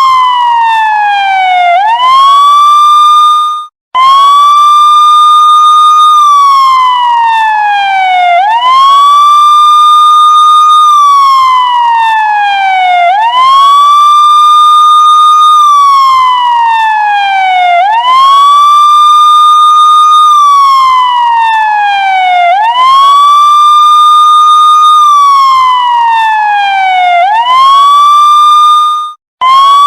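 Police siren sounding a wail: a high tone that holds, falls steadily for a couple of seconds, then sweeps quickly back up, repeating about every four to five seconds. It cuts out abruptly for a moment about four seconds in and again near the end, then starts straight back up.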